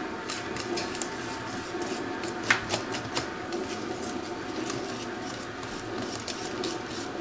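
A utensil stirring thick semolina batter in a stainless steel bowl, with repeated light clicks and scrapes against the metal and one louder knock about two and a half seconds in.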